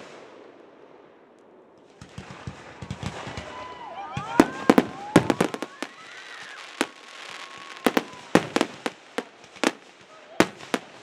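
Fireworks finale: quiet for the first two seconds, then a rising crackle, then from about four seconds in many sharp bangs of aerial shells bursting, several a second.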